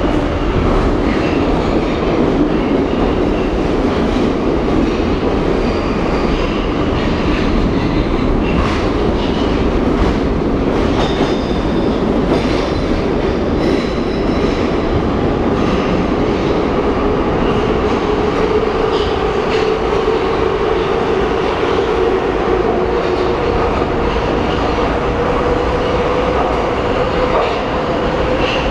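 Soviet-built metro car running through a tunnel, heard from inside the passenger compartment: steady loud rolling and rail noise. A few clicks and knocks come about a third of the way in, and a faint motor whine rises slowly in pitch in the second half.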